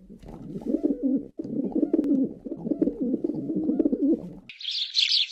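Pigeon cooing in low, repeated rolling phrases. About four and a half seconds in, it cuts abruptly to a small bird's busy high-pitched chirping.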